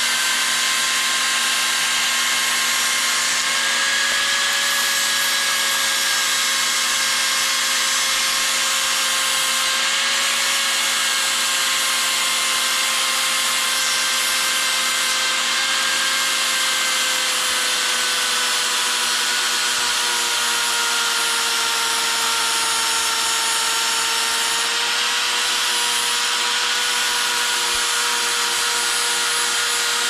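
Corded angle grinder with a flap disc running continuously, grinding the edge of a small sheet-metal patch to shape: a steady motor whine over the hiss of the disc on the steel. The whine dips slightly in pitch past the middle.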